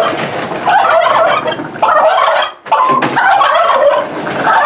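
A flock of domestic turkeys gobbling almost without pause, penned in the barn and restless to get out. There is a short break a little after halfway, then a brief sharp click at about three seconds.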